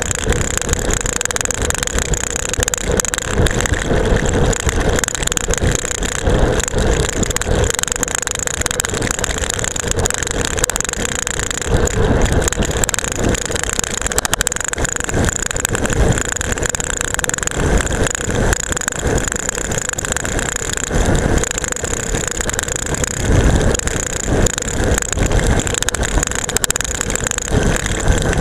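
A camera strapped to a road bike's seatpost rattling hard in its mount during a fast descent, with irregular knocks as the wheels hit bumps, over a steady rush of wind and tyre noise on rough asphalt.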